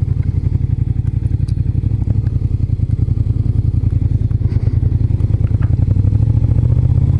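Suzuki Gladius 400's V-twin engine running at low revs with a steady, fast pulsing beat, picking up a little near the end as the motorcycle pulls away through a turn.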